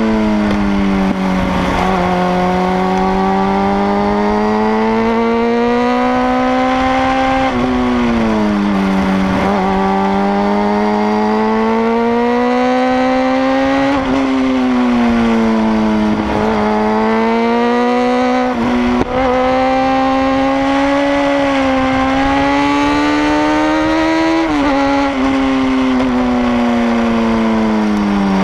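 Sport motorcycle engine under way. Its note climbs steadily and then drops sharply several times as the rider works the throttle and gears through the bends.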